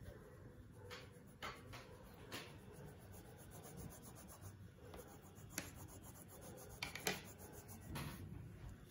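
Faint scratching of colouring strokes rubbed back and forth on paper, with a few light taps and clicks scattered through.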